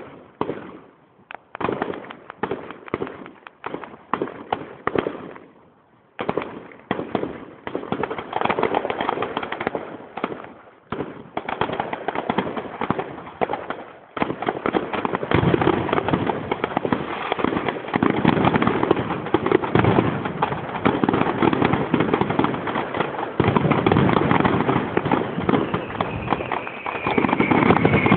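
Fireworks display: a string of separate bangs and crackles with short gaps, building about halfway through into a dense, continuous barrage of crackling and bangs that gets louder toward the end.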